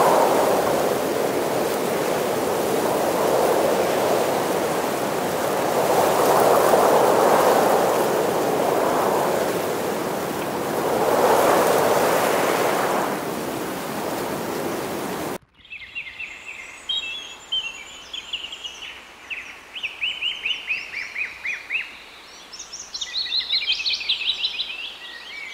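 Wind-driven water washing and lapping on a lakeshore, a steady rush that swells and fades every few seconds. About fifteen seconds in it cuts off abruptly to a much quieter background of birds chirping: quick, high, falling notes in bursts.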